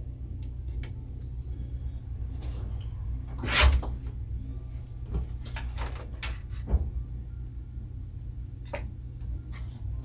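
2006 Mac Pro 1,1 tower running with a steady low hum, with several light clicks and one louder knock about three and a half seconds in.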